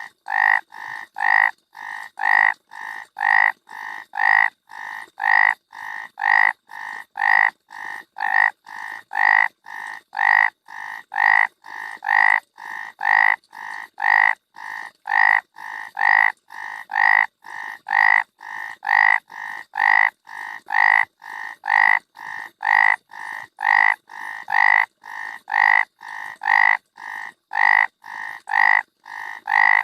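Frog croaking in a steady, even rhythm of about two croaks a second, louder and softer croaks alternating.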